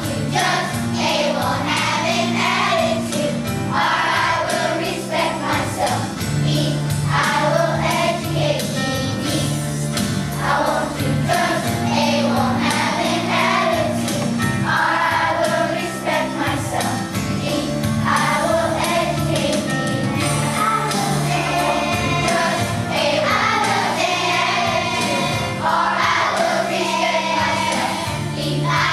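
Children's choir singing together over an instrumental accompaniment with a steady bass line and light percussion.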